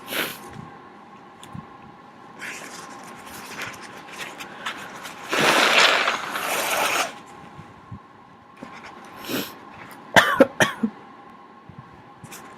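A sick person blowing their nose hard for nearly two seconds about halfway through, clearing congested sinuses. Near the end comes a quick run of four short, sharp bursts of breath.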